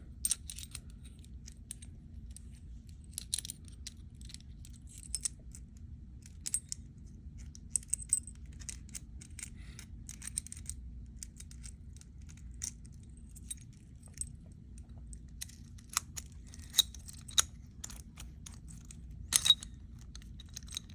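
Light metallic clicks and clinks, scattered irregularly, as a padlock's lock cylinder is handled and fitted back into the padlock body; a few sharper clicks come near the end.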